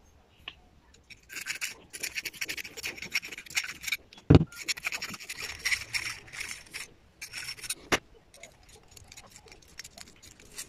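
Small needle file scraping burrs out of the drilled ports of an aluminium vacuum block in quick, short rasping strokes, with two sharp knocks about four and eight seconds in.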